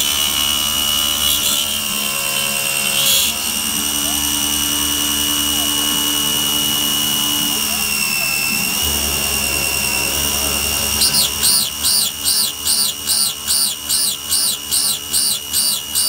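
Belt-driven spindle of a small hobby CNC mill whining steadily at a high pitch while an end mill cuts a metal block on a trochoidal toolpath. About eleven seconds in, the cutting noise starts to pulse, rising and falling about one and a half times a second as the cutter bites on each loop of the path.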